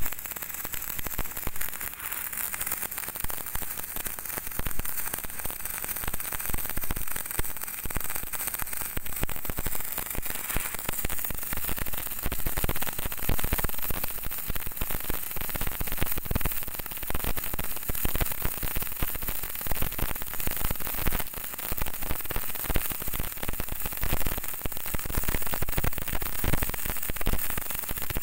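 MIG welder's arc running steadily on thick steel plate: a continuous, dense crackling sizzle.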